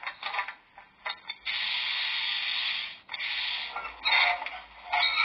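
Sound decoder in a Piko H0 model of a DB class 141 electric locomotive, playing standstill sound effects through its small onboard speaker. A few clicks come first, then a steady hiss lasting about a second and a half, a shorter hiss and more short noisy bursts.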